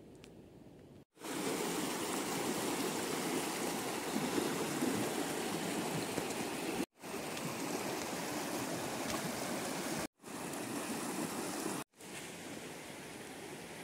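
Muddy flash-flood water rushing along a desert wadi, a steady loud rush of water. It starts abruptly about a second in, is broken by sudden silent cuts about 7, 10 and 12 seconds in, and is quieter after the last one.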